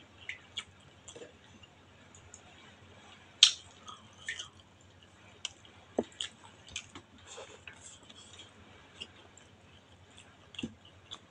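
Close-up chewing of a mouthful of rice and fish, with scattered short sharp mouth clicks; the loudest click comes a bit over three seconds in.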